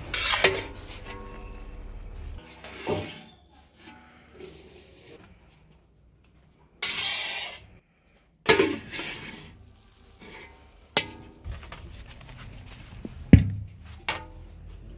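A long metal spatula scraping and clanking against a large iron kadai as a big batch of noodles is stirred and tossed. Several sharp clanks with scraping between them, the loudest near the end.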